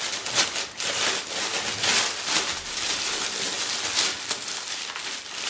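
Plastic poly mailer bag crinkling and rustling as it is torn open by hand and a boxed item is pulled out, with many sharp crackles.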